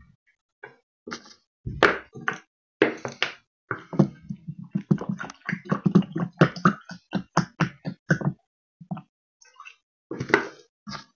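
A quick, irregular run of short knocks and clinks from a brown glass bottle and a cup being handled on a table, coming thickest in the middle.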